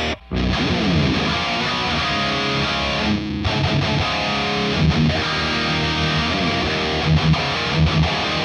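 Heavily distorted electric guitar playing a heavy riff through a high-gain Revv Generator MkIII amp into mic'd 4x12 cabinets. Partway through, the sound switches from the Diezel cab to the Mesa cab. There is a brief gap in the sound just after the start.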